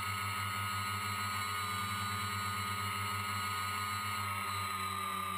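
Quadcopter's electric motors and propellers whining steadily, heard close up through the onboard GoPro. The pitch eases slightly lower about four seconds in.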